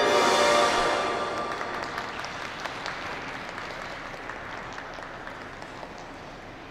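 Skating-programme music ending on a final chord that rings out for about a second, followed by scattered applause from the rink that slowly fades away.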